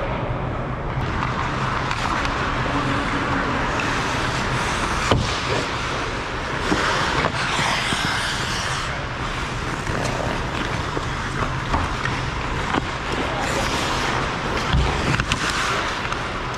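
Hockey skates scraping and carving on rink ice, swelling as players skate close around the net, with a few sharp clacks of sticks or puck now and then over a steady low hum.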